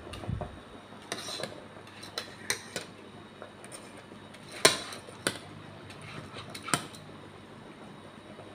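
A metal mesh skimmer knocking and clinking against a stainless steel pot while it presses dry spaghetti down into the water. There are several light knocks, the loudest about halfway through, over a faint steady hiss.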